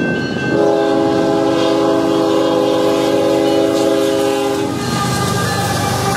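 Nathan Airchime K5HLL air horn on a Union Pacific GE C45ACCTE (ES44AC) diesel locomotive sounding one long chord-like blast of about four seconds. The diesel engine of the approaching locomotive rumbles underneath and carries on after the horn stops.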